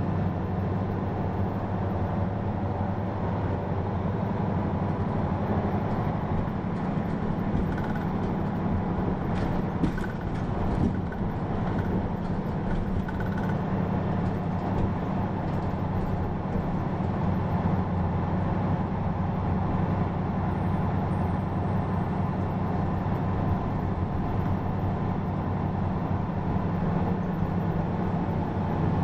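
Hino PA-KR234J1 route bus's diesel engine running steadily, heard from inside the passenger cabin, with a few light clicks in the middle.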